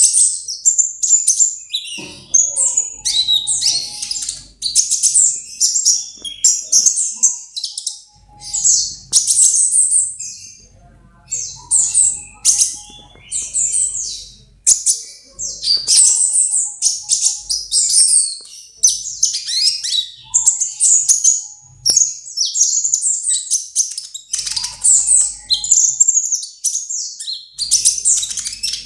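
Small songbird singing a fast, almost unbroken run of high-pitched chirps, trills and sharp whistled notes.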